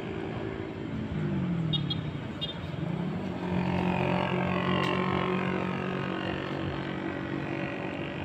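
Engine of a passing motor vehicle: its pitch drops about a second in and rises again, then it holds a steady note, loudest in the middle, and fades near the end.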